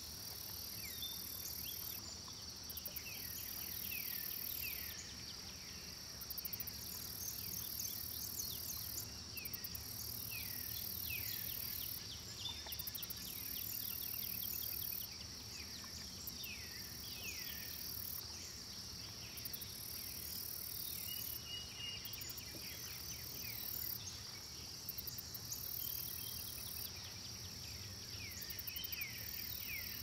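Nature ambience of insects trilling steadily, with a higher buzzing that starts and stops every few seconds. Many short, quick falling chirps run over it.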